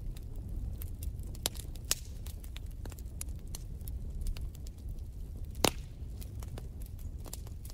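Wood fire crackling, with irregular sharp pops over a steady low rumble; the loudest pop comes about five and a half seconds in.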